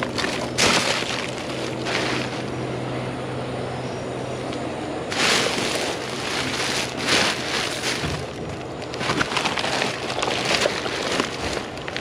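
Plastic trash bags and packaging rustling and crinkling as a gloved hand rummages through a dumpster full of bagged rubbish, in repeated bursts over a steady low hum.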